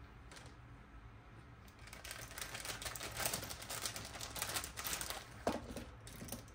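Rapid clicking and rattling of small hard-plastic toy parts being handled, with some crinkling of packaging. It starts about two seconds in.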